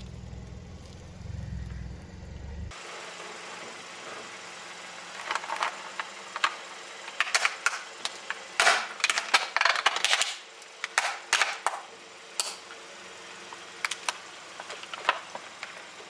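A thin plastic face mask cracking and snapping under a slowly rolling car tyre: a run of sharp cracks, thickest in the middle and loudest about nine to ten seconds in, with a last few near the end. For the first few seconds, before the cracking, there is a low car engine rumble.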